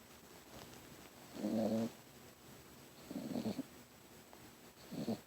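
Puppy snoring in its sleep: three short snores, one about every second and a half.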